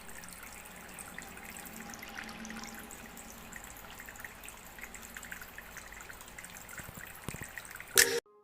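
Water trickling and splashing steadily from a small homemade cement tabletop fountain. A short loud burst of noise comes near the end and cuts off abruptly.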